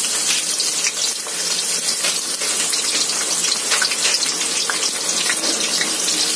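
Sliced red onions frying in hot oil in a large aluminium kadai, a steady, loud sizzle as handfuls are dropped in.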